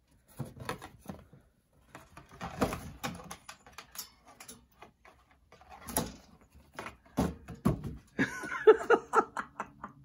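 African grey parrot tearing at a cardboard tissue box: a run of cardboard crackles, snaps and beak clicks, a brief burst of wing flapping about six seconds in, and a couple of knocks soon after. Short pitched voice sounds come near the end.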